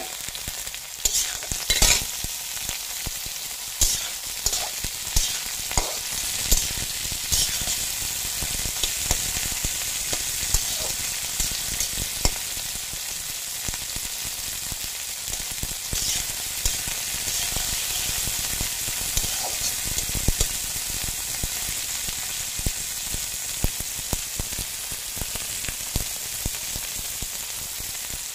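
Insect pupae and sliced onion frying in a metal wok: a steady sizzle, with sharp clicks and knocks every second or two as the mix is stirred in the pan.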